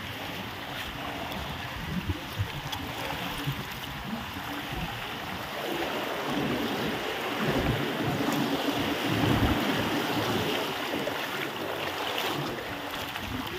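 Wind buffeting the microphone over a steady wash of sea water, growing louder and gustier about halfway through.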